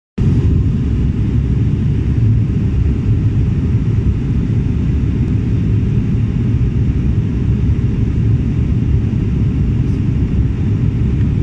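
Steady low rumble of engine and airflow heard inside an airliner's cabin in flight.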